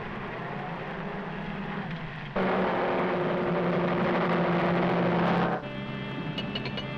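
Cartoon sound effect of the rocket-powered bullet car's engine. A steady hum jumps suddenly, about two and a half seconds in, to a loud rushing blast over a low steady drone, then drops back to a lower hum about three seconds later.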